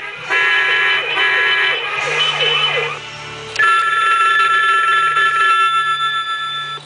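1970s payphone-style house phone playing its built-in electronic ring sounds. First comes a pulsing multi-tone ring, then a quickly warbling siren-like sound around two to three seconds in. After a short dip, a steady electronic ring starts at about three and a half seconds.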